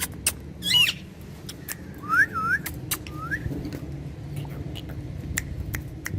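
Indian ringneck parrot whistling: a short call about a second in, then a few quick looping whistles that rise and fall, with sharp clicks scattered throughout.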